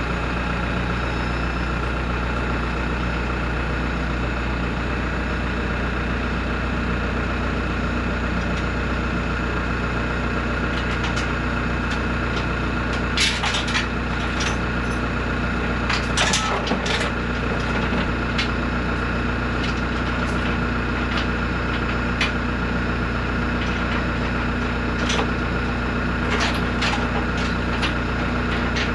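An engine running at a steady idle. A few sharp clanks and knocks come through about 13 seconds in and again around 16 to 17 seconds, with lighter ticks near the end.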